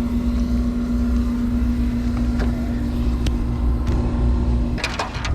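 A boat's motor running with a steady hum over a low rumble. The hum cuts off near the end, and a few sharp knocks follow.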